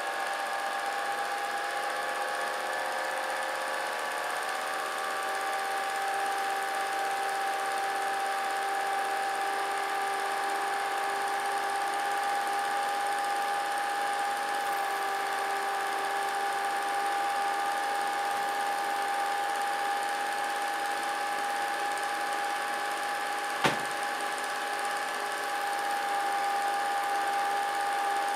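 Vintage reel film projector running, a steady motor-and-mechanism whir with a constant hum, and one sharp click near the end.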